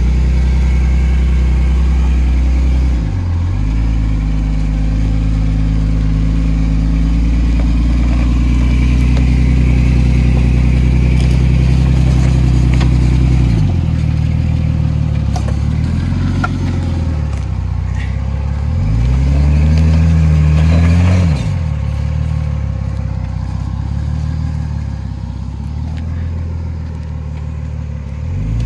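Jeep Cherokee XJ's 4.0 straight-six, breathing through a Flowmaster 40 Series exhaust, working at crawling speed up a rocky slope. The revs rise and fall several times, with the longest build about two-thirds of the way through, then a sudden drop. A few short knocks come from the tyres and chassis on rock and roots.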